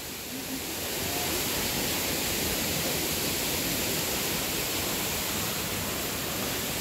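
Steady rushing of a waterfall, an even noise that grows a little louder about a second in.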